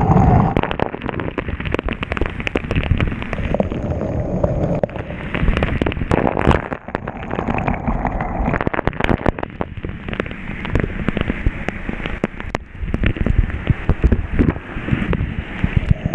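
Heavy water spray spattering on rain suits and gear: a continuous rushing hiss full of sharp crackling hits.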